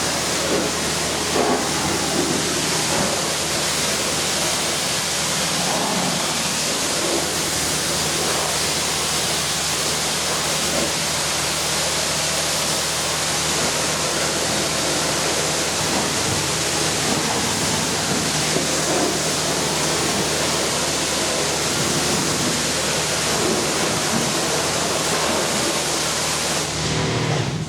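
Pressure washer spraying, a loud steady hiss of high-pressure water with a steady low hum underneath, cutting off suddenly at the end.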